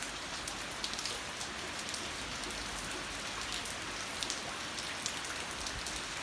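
Steady rainfall: an even hiss with scattered individual drops ticking sharply.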